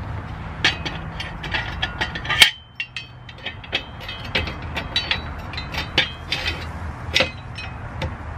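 Hand wrench clicking and clinking against the front brake caliper bolts as they are loosened: a run of short, irregular metallic clicks, with one sharper, ringing knock about two and a half seconds in.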